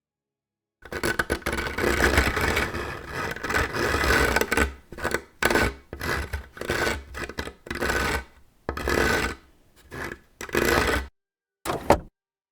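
Something scraped or rubbed against a surface in a long run of uneven strokes that stop and start, then one short stroke near the end.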